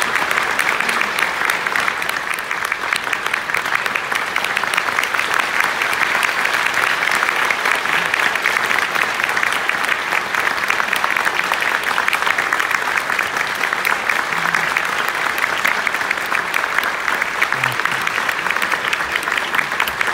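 Large theatre audience applauding steadily at the close of a performance, a dense mass of hand claps.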